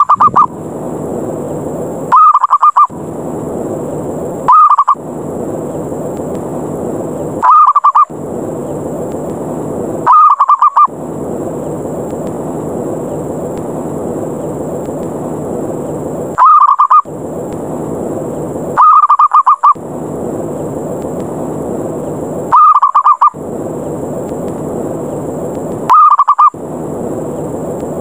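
Zebra dove (perkutut) 'ngerot' lure call: short, loud, rolling coos, about nine of them, every two to three seconds with one longer pause midway, over a steady hiss. It is the aggressive challenge call used to provoke other perkutut into answering and flying down.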